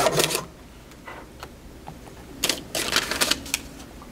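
Thermal receipt printer printing receipts: its whirring run stops just after the start, and after a pause of about two seconds a rapid clicking chatter sets in for about a second.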